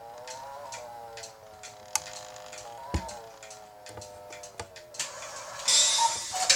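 Scattered irregular clicks and taps from handling a broken cuckoo clock movement, over a sustained tone with overtones that wavers slowly in pitch. Near the end there is a loud burst of rustling hiss.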